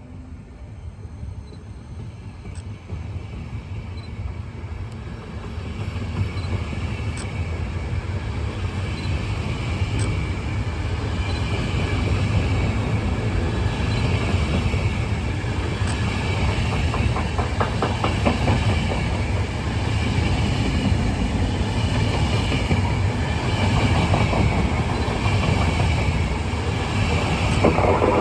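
Passenger train hauled by E402B electric locomotives running through the station, growing louder over the first dozen seconds and then holding steady, with wheels clicking over rail joints.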